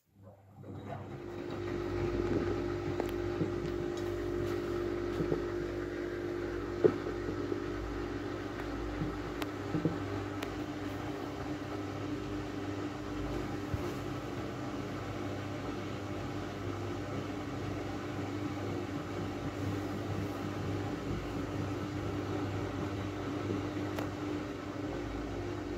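Miele W433 front-loading washing machine running as an intermediate spin begins: a steady mechanical hum with a constant tone from the drain pump and drum motor, fading in about a second in, with a few light clicks.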